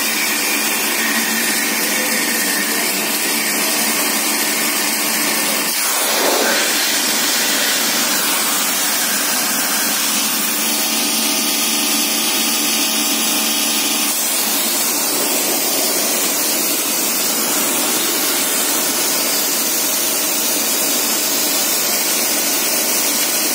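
Pressure washer running: the water jet hisses steadily over the even hum of the machine's motor and pump, with a brief louder surge about six seconds in.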